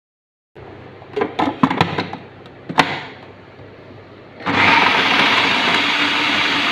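Food processor with a shredding disc: a few sharp plastic clicks and knocks as the bowl and lid are handled, then about four and a half seconds in the motor starts and runs steadily, shredding the food inside.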